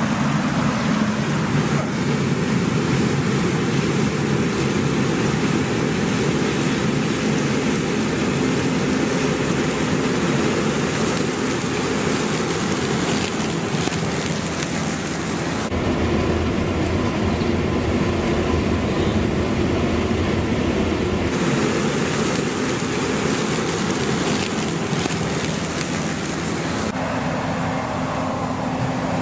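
Claas Lexion 670 combine harvester running steadily while harvesting grain corn: a constant machinery drone with a hiss above it. The mix of the sound changes abruptly a few times, at about 16, 21 and 27 seconds in.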